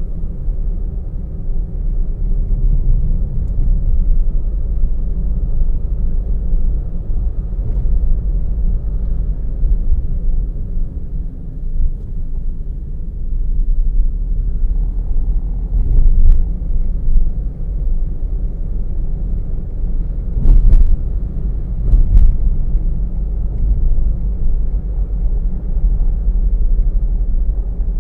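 A car driving, heard from inside the cabin: a steady low rumble of road and engine noise. A sharp knock comes a little past halfway, and two more shortly after.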